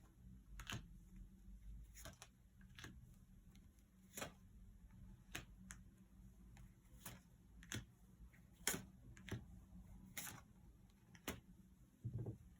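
Near silence with room tone, broken by faint, irregular small clicks and ticks about once a second, and a soft low thud near the end.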